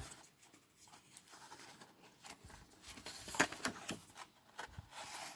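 Hands handling the cardboard and paper inserts of a phone box: soft rustling and light scraping of paper on card, with a sharper scrape about three and a half seconds in.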